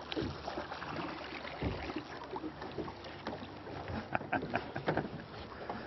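Small fishing boat on the water: a steady rushing noise with scattered light knocks and clicks from the hull and fishing gear while a hooked fish is played on the line.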